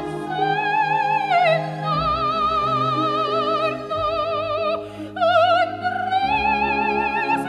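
Background music: operatic singing with long held, wavering notes over sustained orchestral accompaniment, with a brief break about five seconds in before a new phrase.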